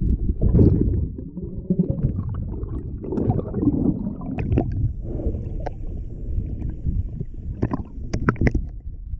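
Muffled underwater rumble of water moving around an action camera in its waterproof housing as a diver swims along a lake bottom, with scattered sharp clicks, several close together near the end.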